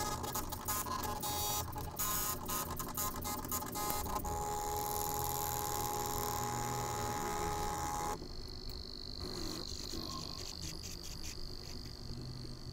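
Stepper motors of a CNC pen plotter built from an old dot-matrix printer, driven through an L298N driver. Rapid stepping clicks with a steady whine in the first few seconds, then a held whine, which changes abruptly to a thinner, higher tone about eight seconds in.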